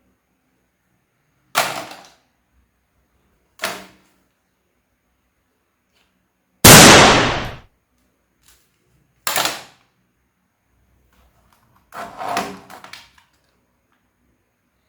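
A series of separate gunshot-like bangs, about five in all, each with a short decaying tail; the loudest and longest comes a little past the middle, and the last is a quick cluster of shots.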